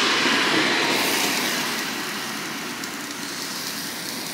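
Sous-vide pork tenderloin sizzling as it sears on the hot grill plate of a Ninja indoor grill. The sizzle is loudest at first and slowly dies down.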